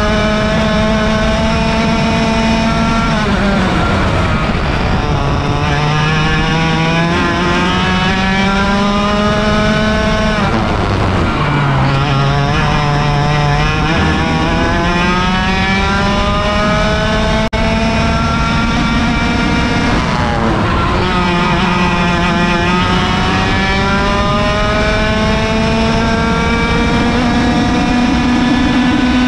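100cc two-stroke kart engine at full throttle, heard onboard, its pitch climbing steadily along the straights and falling away sharply three times as the kart slows for corners before climbing again.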